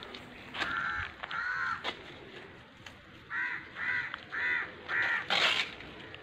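Crow cawing: two caws, then a quick run of four about two a second, with a short burst of noise near the end.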